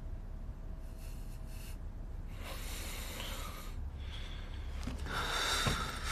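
A person breathing audibly: three breathy exhales or sighs, each about a second long, over a low room hum, the last one the loudest.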